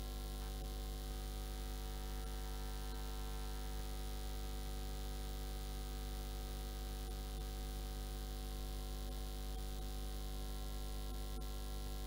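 Steady electrical mains hum with a buzzy stack of overtones over a constant hiss, unchanging throughout.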